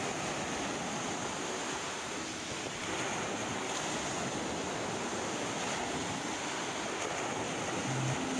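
Steady rushing noise with no clear pattern, like surf or wind; a low note of music comes in near the end.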